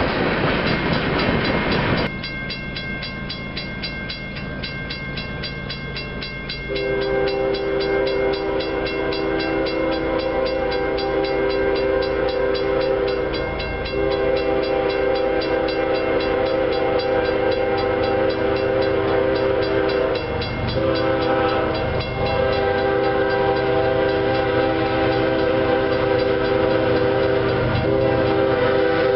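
Freight cars rolling past on the rails, then, after a cut, a grade-crossing bell ringing steadily. About 7 seconds in, an approaching diesel freight locomotive's air horn starts blowing, long, long, short, long: the standard grade-crossing signal.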